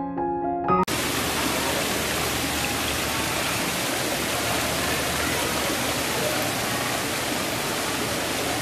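Piano music for the first second, then a sudden cut to a small waterfall splashing steadily over rocks.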